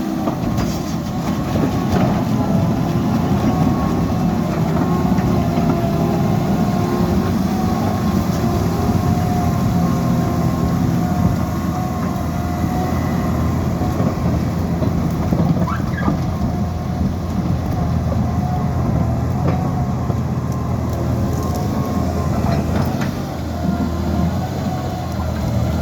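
Liebherr PR 754 crawler dozer working: its diesel engine running steadily under load with a low hum, a faint wavering whine above it and the rolling rattle of the steel tracks.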